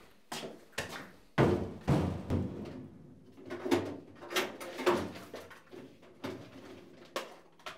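A run of irregular knocks and thumps with scraping noise between them, the loudest about one and a half seconds in.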